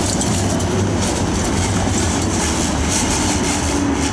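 Yellow Siemens Combino low-floor tram running past on street rails, a steady low hum with wheel-on-rail noise.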